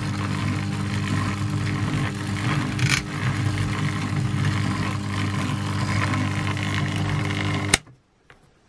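Glass lathe's Sherline 90-volt DC drive motor running with a steady hum. Near the end it is switched off with a sharp click and the sound cuts off suddenly.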